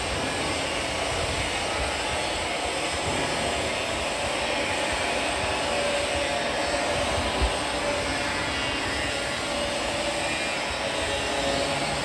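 Reactor agitator's electric motor and gear drive running steadily while it stirs water in the vessel. The drive makes a constant whir with faint steady tones. A single brief knock comes about seven seconds in.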